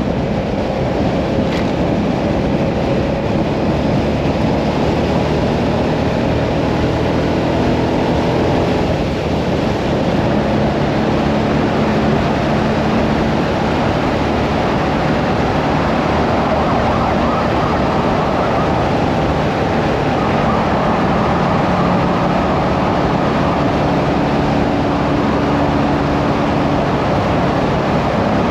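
Hyosung Mirage 650 V-twin motorcycle engine running at road speed under a steady rush of wind and road noise. The engine note shifts in pitch a few times as the speed changes.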